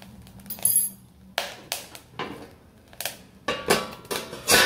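Steel lid clanking and clinking against an iron kadai as it is set back over the cooking pizza: a string of sharp metallic knocks, ending in a louder ringing clang.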